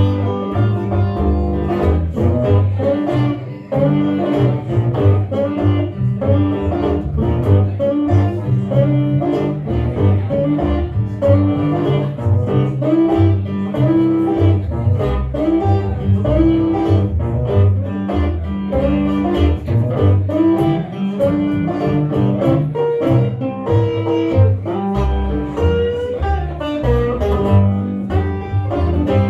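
Instrumental break in a blues song: plucked guitar playing over a steady, rhythmic bass line, with no singing.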